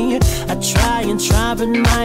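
Background music: an R&B pop track with a steady beat, drum hits about twice a second under a held melody.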